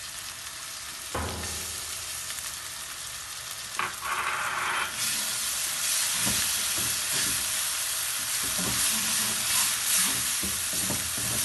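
Onions, spices and ginger-garlic paste sizzling in hot oil in a nonstick wok while a wooden spatula stirs and scrapes them. The sizzle grows louder about five seconds in.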